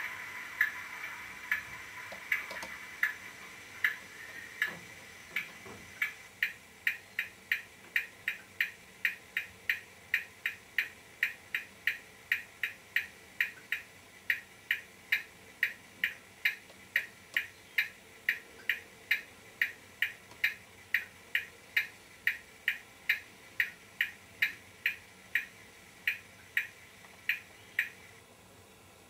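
A Class 37 model locomotive's sound decoder, heard through its small onboard speaker. A steady engine sound fades away over the first few seconds, then a regular ticking runs at about two ticks a second and stops near the end.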